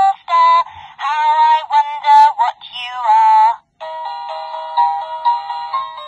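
VTech Baby Nursery Rhymes book playing through its small built-in speaker: an electronic voice sings, then after a brief pause, nearly four seconds in, an electronic nursery-rhyme melody of steady, even notes begins.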